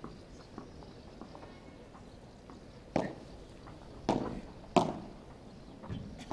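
Padel ball play: a few faint taps, then from about halfway through, sharp pocks of rackets striking the ball and the ball bouncing off the court and glass walls, roughly a second apart.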